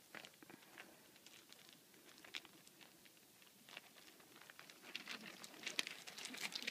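Faint, scattered crunches and clicks of loose gravel stones being stepped on. They grow louder and more frequent over the last couple of seconds.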